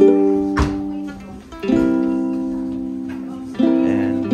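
Background music of strummed guitar chords. A new chord starts about every two seconds and is left to ring out, with a short sharp click about half a second in.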